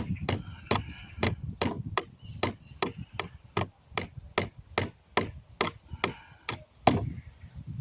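Hammer striking nails to knock them back through a wooden pallet plank, a steady run of blows at about two a second that stops about seven seconds in.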